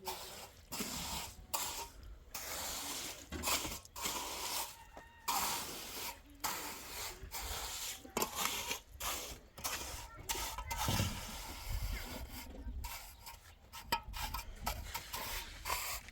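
A series of irregular scraping, rasping strokes, roughly one every second or so, with short pauses between them.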